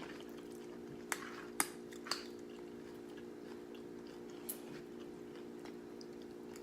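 Crunching and chewing of Doritos nacho chips: three sharp crunches in quick succession in the first two seconds and one more about four and a half seconds in. A steady low hum runs underneath.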